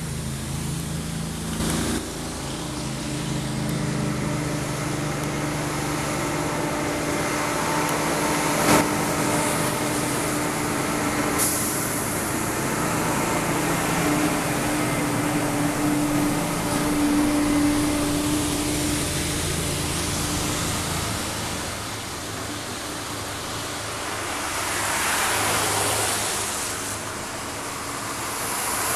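Diesel tractor-trailer trucks passing one after another on a wet road: engines running, with tyre hiss on the wet pavement swelling as a truck approaches near the end. A single sharp knock is heard about nine seconds in.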